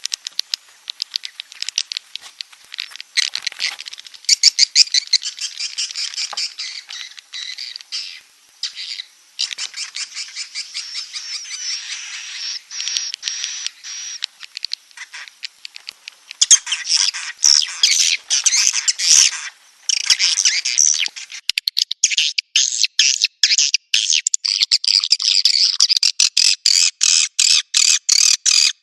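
Swiftlet lure call: a recording of edible-nest swiftlets' rapid chirping and clicking twitter, the kind of sound played in swiftlet houses to draw the birds in. The twitter runs dense and unbroken, turning thinner and more evenly pulsed about three quarters of the way in.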